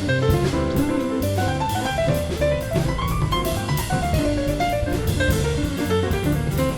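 Instrumental background music in a jazz style, piano over a drum kit keeping a steady beat.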